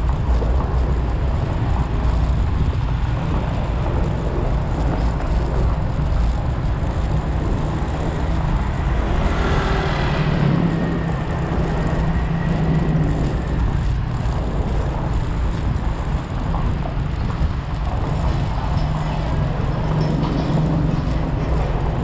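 City road traffic heard from a moving vehicle: a steady rumble of engines and tyres. About halfway through it grows louder for a few seconds, with a thin high tone.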